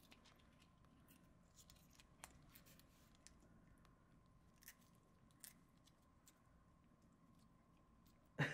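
Faint, sparse wet clicks of a cat licking and lapping lickable paste from a Churu squeeze tube, against near silence; a short louder sound comes right at the very end.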